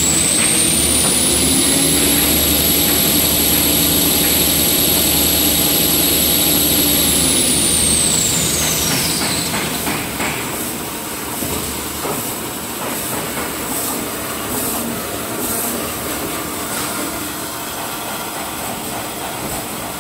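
XY-AI-400 automatic toilet paper band saw cutting machine running. A high motor whine climbs in pitch, holds for several seconds, then falls away about nine seconds in. The machine then runs on with a steady mechanical clatter and scattered clicks.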